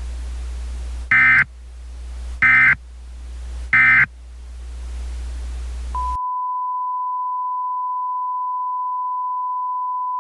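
Three short, loud bursts of Emergency Alert System SAME data tones about a second and a half apart, the end-of-message signal, over a steady low hum and hiss. About six seconds in the hum cuts out and a steady single-pitch tone sounds.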